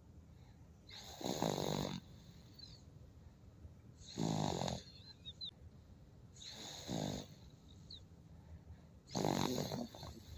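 A baby snoring: four loud snores about every two and a half seconds, each close to a second long.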